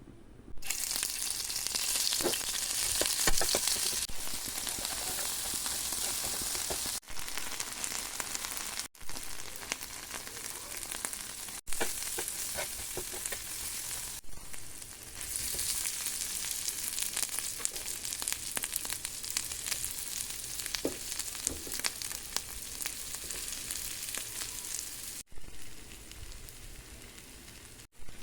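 Elephant foot yam frying in hot oil in a pan: a steady, loud sizzle with a few short clicks, like a utensil stirring. The sizzle stops and starts again abruptly several times.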